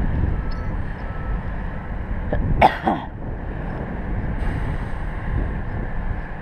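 Wind buffeting the microphone high on a steel tower, with one short cough-like vocal sound about two and a half seconds in.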